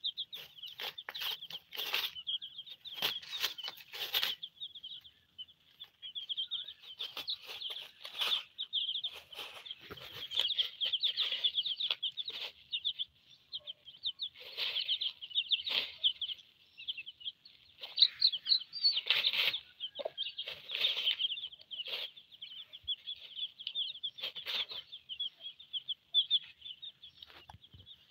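Silkie chicks peeping nonstop in a dense, high-pitched chorus, with a hen's lower clucks now and then. Scattered short rustles and clicks come from the birds pecking and scratching in dry litter.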